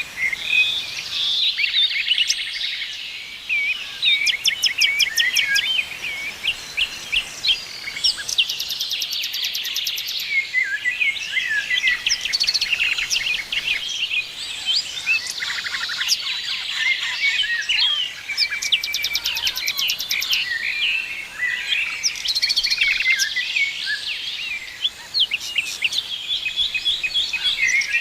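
Several small birds singing and chirping at once, a dense chorus of overlapping high chirps, quick trills and rapid ticking series.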